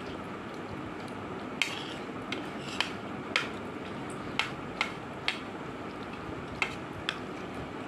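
Metal spoons and forks clicking and scraping against a plastic plate of pasta, a sharp click about once a second, over a steady background hiss.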